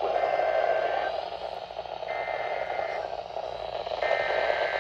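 Three SAME header data bursts from a NOAA weather radio, each a harsh two-tone digital screech about a second long, spaced a second apart, over steady radio hiss. These bursts are the coded opening of a broadcast snow squall warning.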